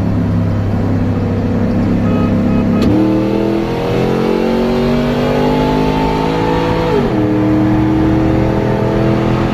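Pickup truck's V8 engine heard from on board, cruising steadily. About three seconds in the throttle opens and the engine pitch jumps up, climbing slowly for about four seconds under acceleration, then drops back sharply as the throttle is let off.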